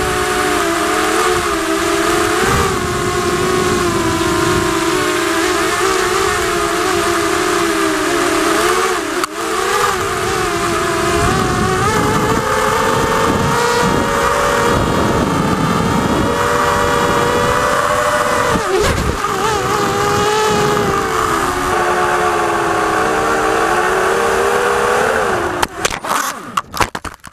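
Motors and propellers of a 250-size FPV racing quadcopter whining steadily, the pitch drifting up and down with the throttle, over a rushing hiss. Near the end the sound stutters in short choppy bursts and then cuts off.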